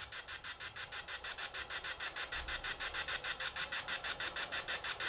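Phone spirit-box app (GhostTube) sweeping through radio static, heard from the phone's speaker as a rapid, even pulsing hiss of about six beats a second.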